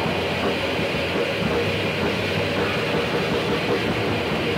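Raw black metal from a lo-fi, tape-sounding demo recording: a dense, unbroken wall of distorted noise at a steady loudness, with faint held pitches buried underneath.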